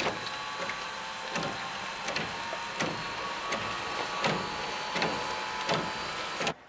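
Union Pacific 844's piston-type hot water feed pump working back and forth, a knock about every 0.7 seconds over a steady hiss, ramming preheated water into the boiler against boiler pressure. The sound cuts off suddenly near the end.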